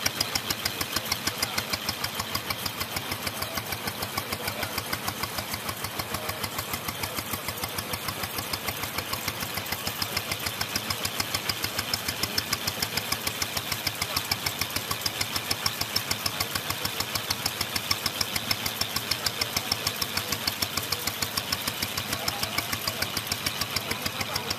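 Small open-mounted boat engine running steadily under way, with a fast, even beat.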